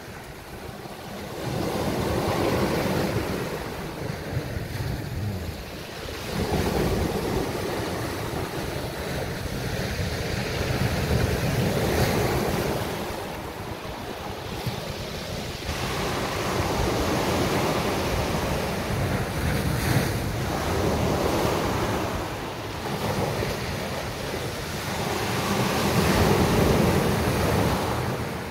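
Sea waves breaking and washing up a beach, the surf swelling and ebbing every few seconds. Wind buffets the phone's microphone with a low rumble.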